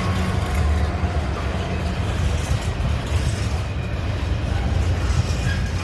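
Freight train passing, a steady low rumble at an even level.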